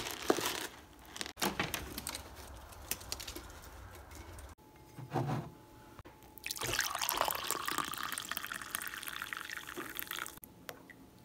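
Coffee poured from a carafe into a ceramic mug: a steady splashing pour of about four seconds in the second half. Before it come short separate bits of small clicks and knocks.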